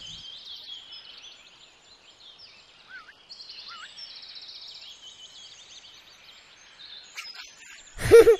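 Birds chirping and trilling, a faint outdoor birdsong bed. About eight seconds in, a boy's voice breaks in loudly.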